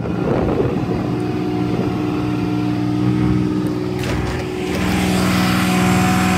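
The bucket truck's Kubota pony motor running steadily, powering the hydraulics while the bucket boom lifts. Its tone shifts slightly about four and a half seconds in.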